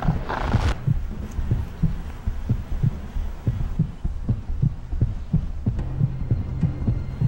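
Soundtrack tension effect: a low throbbing pulse like a fast heartbeat, about three beats a second. A harsh noisy burst fades out in the first second, and a steady low hum joins about six seconds in.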